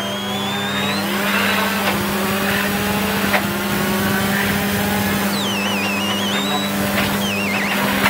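In-car sound of a Volkswagen Polo R5 rally car's turbocharged four-cylinder accelerating hard on gravel, revving up through the gears with each upshift marked by a quick drop in pitch and a sharp crack. In the second half it eases off for braking, and high warbling whistles come and go.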